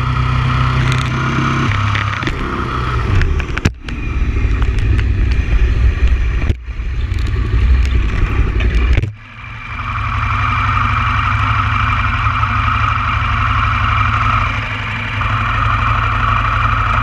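Motorcycle engine running while riding, heard through a bike-mounted action camera. The sound cuts out sharply three times in the first nine seconds, then settles into a steady, even run for the rest.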